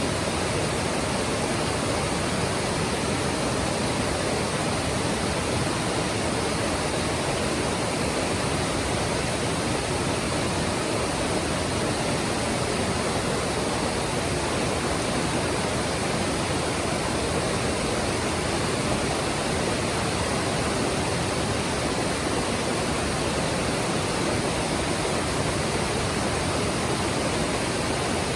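Mountain stream rushing over rocks: a steady, even wash of flowing water that does not change.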